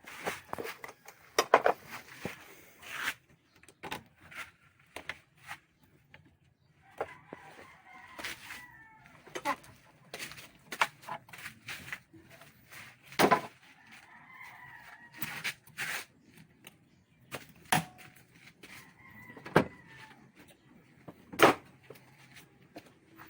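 Sharp clicks and knocks of hand tools on metal and plastic parts as an engine cover and ignition coil are taken off, with a rooster crowing in the background several times.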